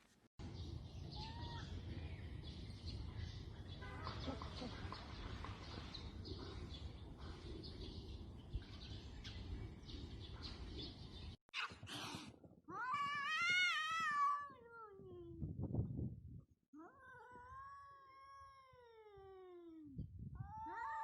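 Cat meowing: two long, drawn-out meows a couple of seconds apart, each falling in pitch, after a stretch of steady low background noise.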